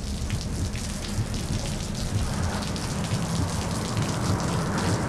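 A steady rain-like patter: a hiss full of many small ticks over a low rumble.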